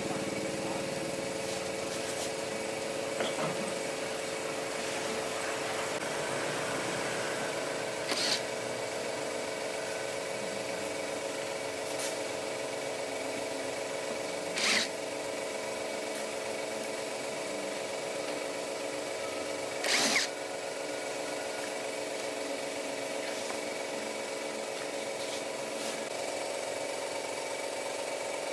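A power tool running steadily at a constant pitch, with a few short, sharp knocks about 8, 15 and 20 seconds in.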